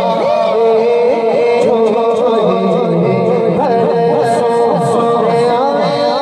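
A man singing a kalaam, a devotional poem, solo into a microphone. He holds long notes and decorates them with wavering, gliding ornaments.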